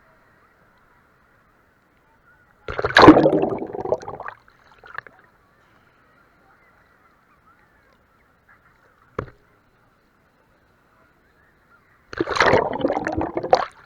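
Water sloshing and splashing against an action camera's microphone as it dips into the sea, in two loud bursts about nine seconds apart, with a short knock between them.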